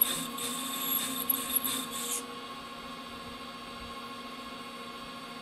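Lathe parting tool cutting into a spinning metal bar, the cutting noise coming in uneven pulses as the feed is pecked in and out to break the chips. About two seconds in the cutting stops abruptly, leaving the steady hum of the lathe running.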